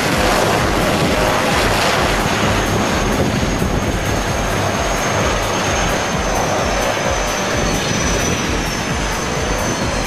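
Twin-engine turboprop airplane at high power on its takeoff roll: steady propeller and engine noise with a low pulsing, and a thin high turbine whine that comes in a couple of seconds in and drops slightly in pitch near the end.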